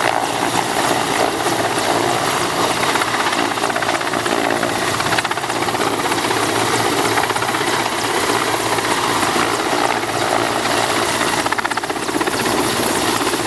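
Mil Mi-17-type military transport helicopter hovering low and close, its rotor beating and its turbines running steadily and loud.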